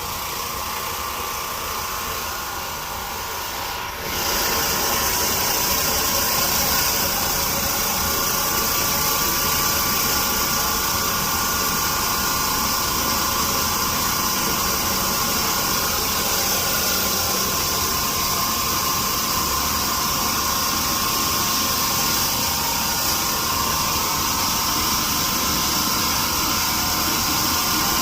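Floor-cleaning machine fitted with a scrub brush running steadily on a tile floor. About four seconds in, the sound gets louder and a strong hiss joins it.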